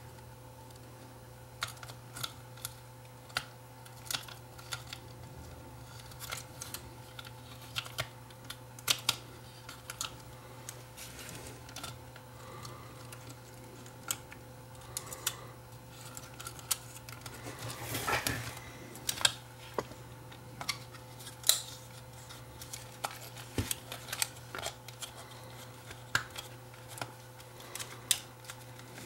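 Small plastic clicks and knocks, irregular and scattered, as the camcorder's body and viewfinder parts are handled and fitted back together, with a brief rustle partway through. A steady low hum runs underneath.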